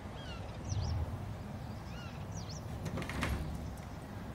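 An interior door's knob being turned and its latch clicking as the door is pulled open, with a thud and a couple of clicks about three seconds in. Faint bird chirps sound in the background.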